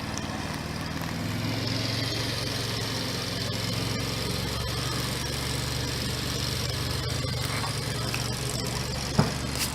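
Steady low engine hum, with one sharp bang about nine seconds in.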